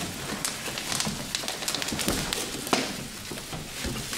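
Plastic wrapping around a 3D printer crackling and rustling as it is lifted out of its cardboard carton, with the cardboard flaps rubbing. Irregular, with many short crackles.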